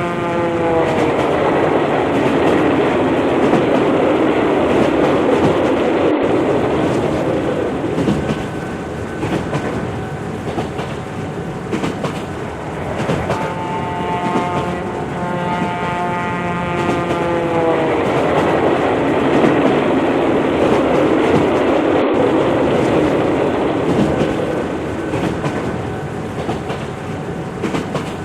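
Indian Railways train passing close by with a loud, continuous rumble of wheels and cars. Its multi-note horn sounds twice: the tail of a blast about a second in, and a longer blast of about four seconds around the middle, each dropping in pitch at its end as the train goes by.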